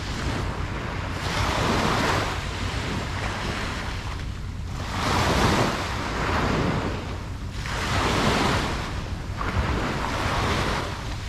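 Ocean waves breaking and washing up on a beach, the surf swelling about every two to three seconds over a steady low rumble.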